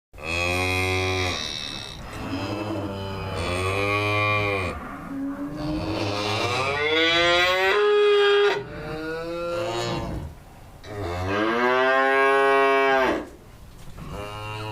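Cow mooing: several long, drawn-out moos one after another, the last a long call about eleven seconds in.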